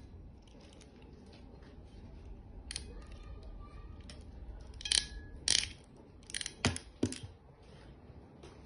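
Light clicks and clacks of small hard objects being handled, with a cluster of louder sharp clacks about five to seven seconds in.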